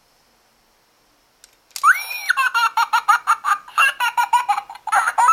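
A very high-pitched giggle, like a sped-up cartoon voice, starting a little under two seconds in: a squeal that rises and falls, then a quick run of 'hee-hee' pulses about five a second, ending with another rising-and-falling squeal.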